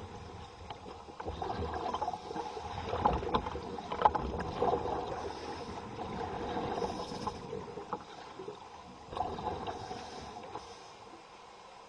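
Underwater scuba diver breathing through a regulator: bubbly, gurgling exhalations with scattered clicks. A long bubbling spell in the first half, a shorter one about three-quarters through, then quieter.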